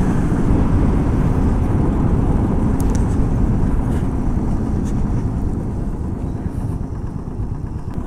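A moving road vehicle heard from on board: a steady, dense low rumble of engine and road noise, with wind buffeting the microphone.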